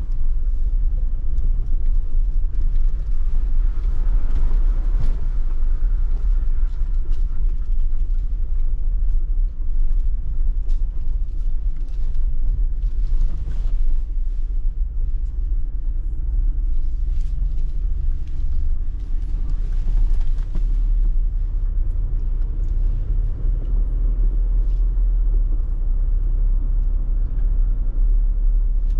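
Jeep Wrangler Rubicon 392's 6.4-litre Hemi V8 running as the Jeep drives, a steady deep rumble with scattered light clicks and knocks over it.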